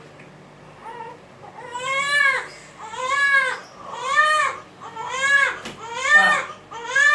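A fussy infant crying in a series of short wails that rise and fall in pitch, about one a second, starting about two seconds in.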